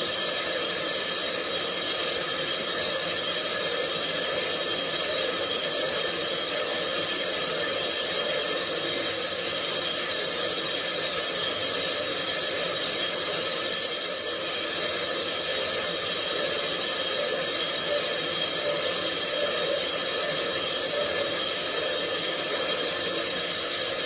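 Mazak Variaxis i-700 five-axis machining centre thread milling a metal boss: a steady hiss of the spinning cutter and coolant spray, with several steady whining tones running through it.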